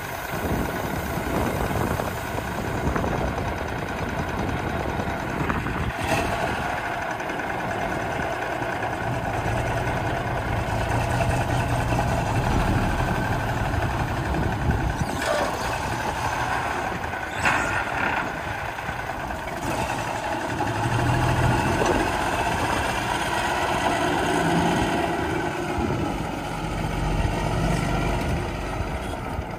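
Cummins 14-litre eight-cylinder diesel engine of a 1981 GMC Brigadier grain truck running, its low note swelling and easing in places, with a few brief sharp sounds along the way.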